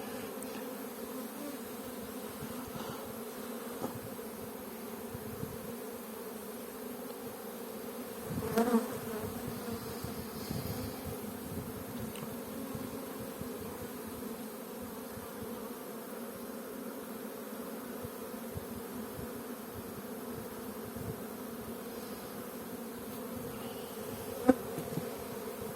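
Honeybees humming steadily over an opened hive's brood frames. A louder buzz with a bending pitch swells briefly about nine seconds in, and there is a single sharp click near the end.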